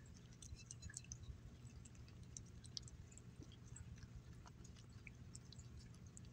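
Faint, irregular little clicks and smacks of a cat chewing and licking up bits of salmon from a glass plate.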